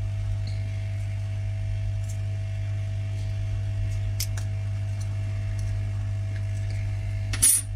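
Steady low electrical hum with a fainter higher tone above it, under a few faint light clicks of a small screwdriver working at the phone's bottom screws. A brief, sharper scrape comes near the end.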